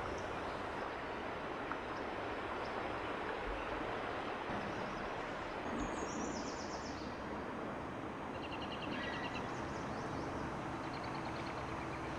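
Steady outdoor rush of background noise with songbirds singing short trills, one falling in steps about six seconds in and others from about eight to eleven seconds in.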